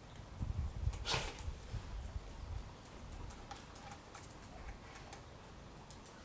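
A cat crunching dry kibble: a run of small, irregular clicks. There is a brief rustle about a second in and low rumbling in the first second and a half.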